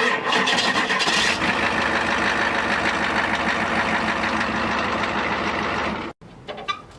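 Ford 7.3 L IDI turbo-diesel V8 starting on a new high-torque gear-reduction starter and then running at idle with a steady diesel clatter. The sound cuts off abruptly about six seconds in.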